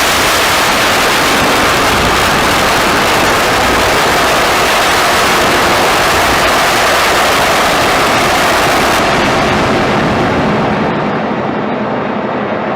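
Loud, dense wall of noise in an ambient noise music track. From about nine seconds in, its top end is cut away, so it turns duller and a little quieter near the end.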